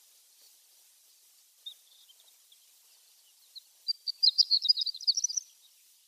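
Horned lark (shore lark) calling: a single high chirp about two seconds in, then a quick burst of rapid, high twittering notes near the end that rises a little as it finishes.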